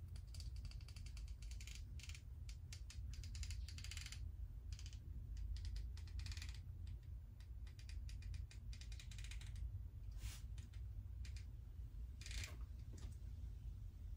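Small metal chain clinking and rattling against a cup as it is worked around in paint to coat it, in several short bursts of rapid clicks. A low steady hum runs underneath.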